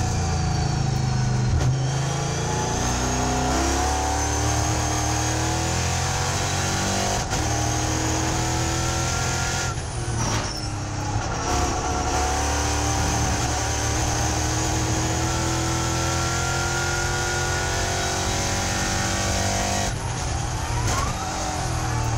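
Onboard sound of a Euro NASCAR Ford Mustang V8 race car at speed on a qualifying lap. The engine note climbs through the gears and falls on the lifts and downshifts, with a sharp lift about ten seconds in and another near the end.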